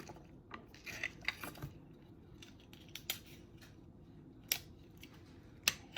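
A handful of short, sharp clicks and light rustles, spread irregularly across several seconds, from hands working with craft supplies at a table; the two loudest come in the second half.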